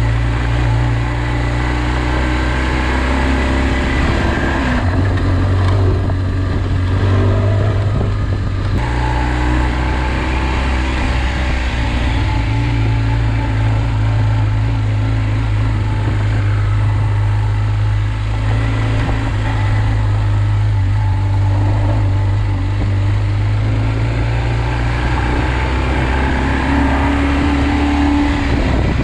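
Tractor engine running steadily under load while pulling a plough, with its note shifting a little about five and nine seconds in.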